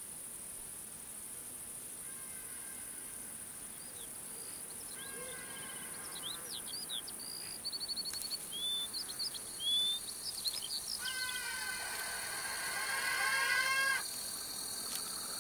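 Forest ambience: a steady high insect hiss with scattered bird chirps and trills. Near the end, a layered tone builds up and then cuts off suddenly.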